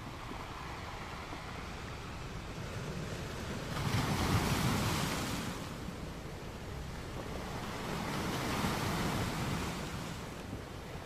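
Wind and waves on open water: a steady rush that swells louder twice, about four and eight seconds in.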